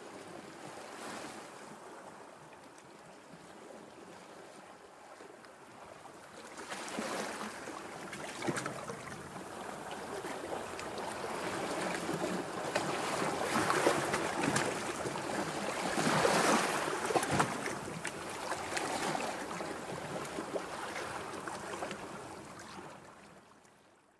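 Sea waves washing on a shore: a noisy wash that builds from about six seconds in, is loudest around the middle, then fades out near the end.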